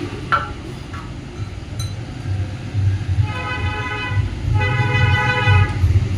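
Motorcycle horn sounded twice, each honk about a second long, over a low steady engine rumble.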